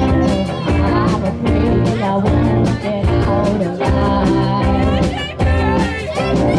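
A rock band playing live: drums keeping a steady beat under bass and electric guitar, with a sung vocal line.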